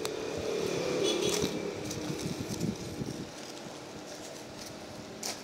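Clear plastic wrapping on a parcel rustling and crinkling under the hands for about three seconds, then dropping away to a steady fan-like hum with a couple of small clicks near the end.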